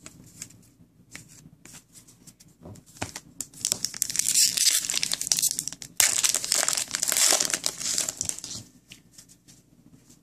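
Foil wrapper of an Upper Deck hockey card pack being torn open and crinkled in the hands: loud crinkling from about three and a half seconds in, lasting some five seconds with a brief break in the middle, after a few soft clicks and rustles.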